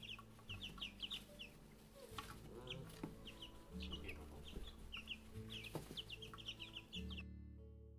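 Young chicks peeping in many short, quick cheeps over quiet background guitar music. The peeping stops about seven seconds in, leaving only the guitar.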